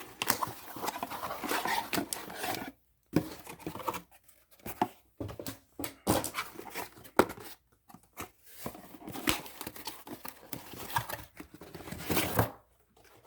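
Mailer packaging being opened by hand: tearing, rustling and crinkling, a steady stretch at first and then in short bursts with scattered clicks and knocks.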